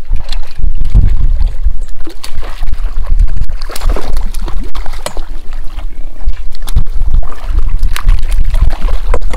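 Wind buffeting the microphone, with a hooked trout splashing at the surface as it is netted beside an inflatable pontoon boat; the sharpest splashes come about four and eight seconds in.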